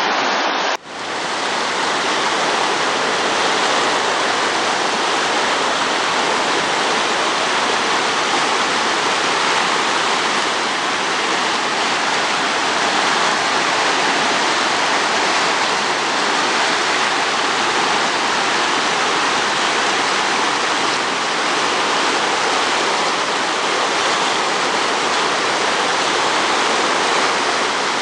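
Loud, steady rush of storm-swollen water pouring through a river channel, after a brief break about a second in.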